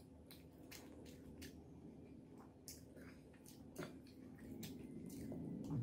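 Fingers squeezing and lifting big soya chunks out of a soybean curry: faint, wet squishes and small clicks, several a second.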